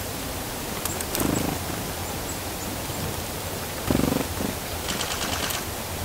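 Steady outdoor hiss of wind, with faint short high chirps from small songbirds. Two brief low-pitched sounds come about a second and four seconds in, and a quick run of sharp high notes near the end.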